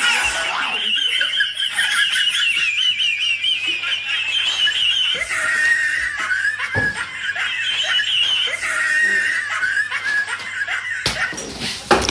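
High-pitched, wavering laughter that goes on for about eleven seconds and drops lower in pitch about halfway through, cut off near the end by a louder, noisier sound.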